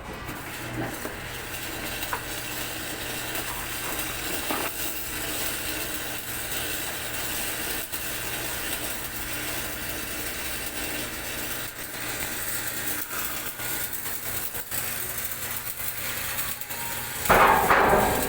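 Electric arc welding: a steady crackling hiss from the arc, full of small irregular clicks, with a louder, harsher burst near the end.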